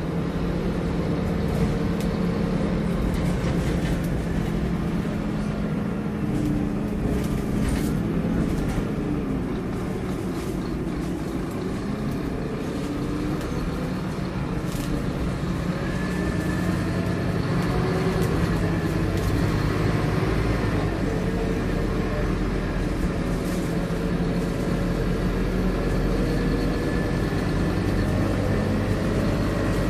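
Scania K230UB bus's diesel engine and ZF automatic gearbox heard from inside the passenger cabin while the bus is under way. The engine note drifts up and down with speed, with a faint gearbox whine in the second half and small rattles from the interior fittings.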